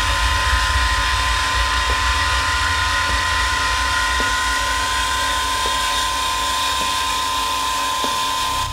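Steady droning hum: a constant thin high whine over a low rumble, with a few faint soft ticks about once a second.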